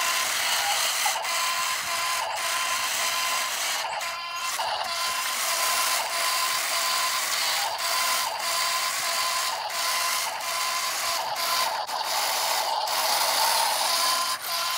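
A toy RC dump truck's small electric motor and plastic gearbox whirring as it drives over loose dirt. There is a steady high tone that breaks off briefly every second or so, with scattered faint clicks.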